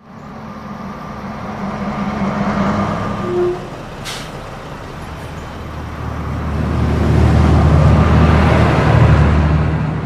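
City bus engine running as the bus draws up. A short squeal comes about three and a half seconds in and a sharp air-brake hiss just after four seconds. The engine then grows louder and deeper as the bus pulls away.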